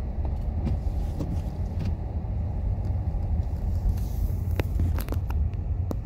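Low, steady rumble of a rear-wheel-drive Dodge car heard from inside the cabin as it drives on a snow-covered road, with a few light clicks near the end.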